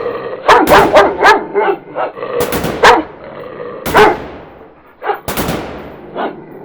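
Large dog, a bandog, barking loudly: a quick run of about four deep barks, then single barks spaced about a second apart.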